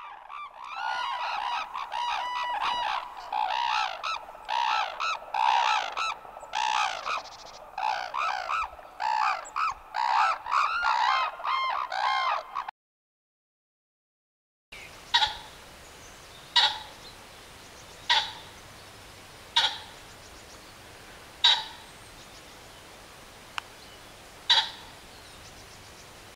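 Red-crowned cranes calling, many loud calls overlapping one another for about twelve seconds. After a short silence, a green pheasant gives six short, sharp calls, one every one and a half to three seconds.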